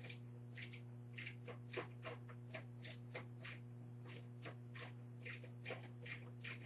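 Case fan being fastened into a computer case by hand: a run of short, irregular clicks and scrapes, about two to three a second, over a steady low electrical hum.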